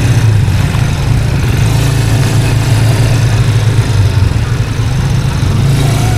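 ATV engine running steadily as the quad is ridden along a dirt trail, a constant low hum.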